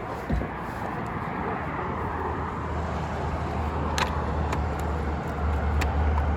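A low steady engine rumble over background noise; it sets in about one and a half seconds in and grows louder a little past five seconds, with a few sharp clicks over it.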